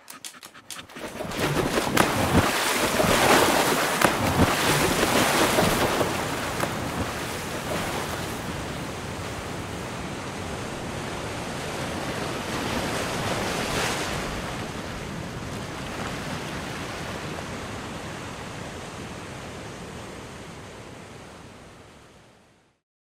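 Ocean surf washing onto a shore: a louder surge of waves in the first few seconds, then a steadier wash that fades out near the end.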